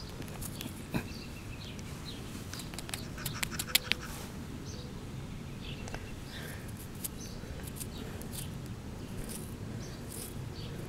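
Fingers rubbing and picking caked dirt off a small dug-up find, heard as scattered soft scratches and clicks, with a quick run of sharp clicks about three and a half seconds in, over a steady low outdoor rumble.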